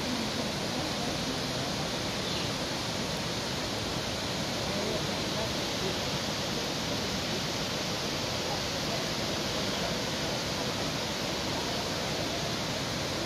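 Waterfall pouring in many strands down a rock cliff: a steady, even rush of falling water.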